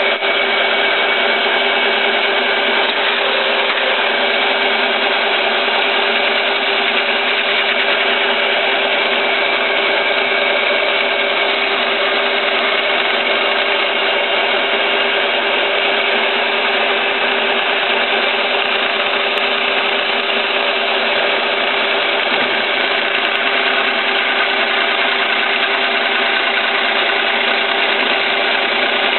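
Milling machine running steadily, milling back the welded repair on a cast iron woodchipper blade clamp. Several steady tones sit over a dense, even cutting noise.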